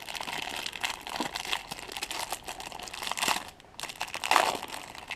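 Plastic wrapper crinkling and rustling as a stack of baseball cards is handled and split in two, with a louder crinkle about four seconds in.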